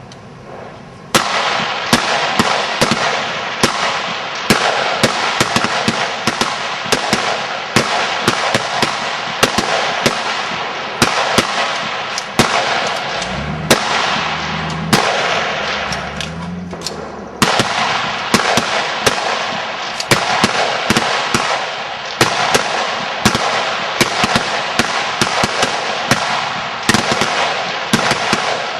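A firing line of high-power rifles shooting a rapid-fire string: many sharp shots overlapping in an irregular, unbroken barrage that starts about a second in.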